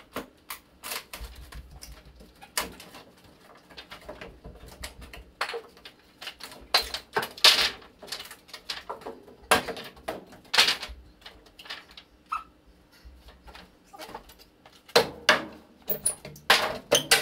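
Basement wall being demolished by hand: irregular knocks, cracks and clatter as wall material is pried loose, torn off and dropped, with a few louder bangs partway through.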